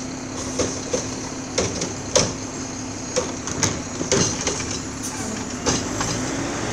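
Automated side-loader garbage truck emptying a wheeled trash cart with its hydraulic arm and setting it back down: a string of irregular clanks and knocks over the truck's steady engine hum.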